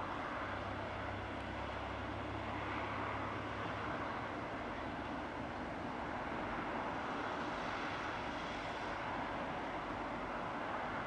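BR Class 33 "Crompton" diesel locomotive running, its Sulzer eight-cylinder engine giving a steady drone, with a deep low hum in the first few seconds.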